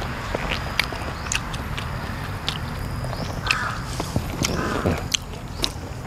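Close-up eating sounds, chewing and wet mouth clicks over a mouthful of noodles, while a bird calls twice in the background past the middle.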